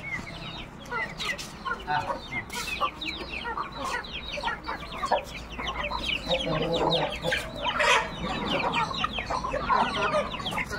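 A flock of domestic chickens clucking, with many short, high, falling calls overlapping.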